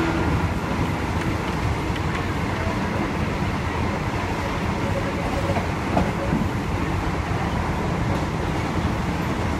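Steady running noise of a State Railway of Thailand passenger train heard from inside the carriage: wheels rumbling on the rails, with one faint click about six seconds in.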